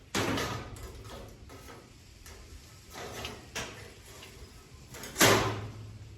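Shop work on steel: a few bangs and scrapes of metal pieces being handled, one just at the start and the loudest about five seconds in, trailed by a low hum.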